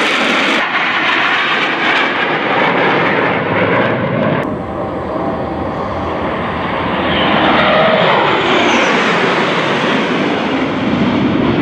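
Formation of F-16 Fighting Falcon fighter jets flying past overhead with loud, rushing jet-engine noise. About seven to nine seconds in, the pitch falls as they go by.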